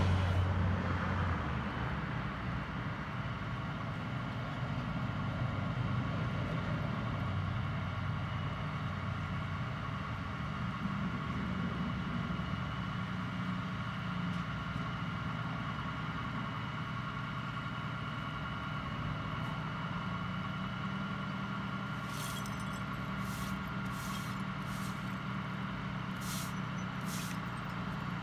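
Flatbed tow truck's engine running steadily at idle. Near the end comes a quick series of about six short, sharp, high clicks.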